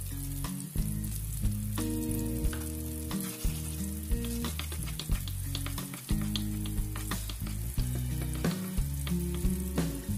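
Minced garlic sizzling in hot oil and butter in a nonstick frying pan, stirred with a wooden spoon, with frequent sharp clicks from the spoon and spitting oil. Steady low notes run underneath, changing every second or so.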